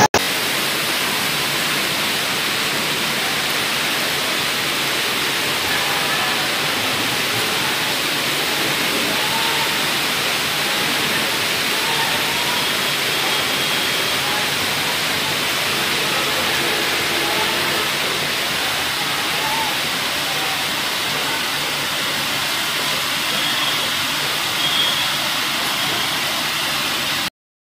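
Steady rushing of water from heavy monsoon rain and floodwater, an even hiss that holds level throughout and stops abruptly near the end, with faint voices in the middle.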